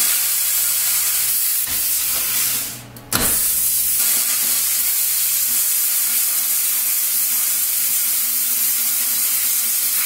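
HTC Cutmate 20 plasma cutter's arc hissing steadily as the torch cuts through steel sheet. The hiss stops briefly about three seconds in, then starts again sharply and runs on.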